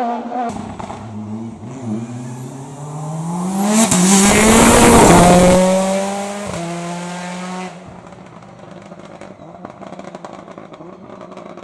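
Hillclimb race car accelerating hard past the microphone, its engine note climbing in pitch and loudest about four to six seconds in, then dropping away abruptly near eight seconds to a faint background.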